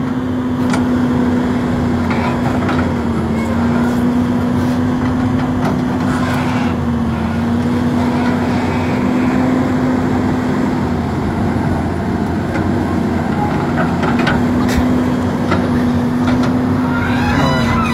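Hydraulic excavator's diesel engine running steadily, a constant hum whose pitch wavers slightly, with a few short clicks near the end.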